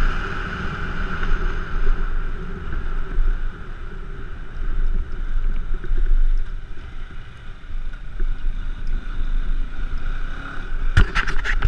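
G-max 150 motorcycle engine running while riding, with wind rush on the microphone and a low road rumble; the engine tone fades after about two seconds. A few sharp clicks near the end.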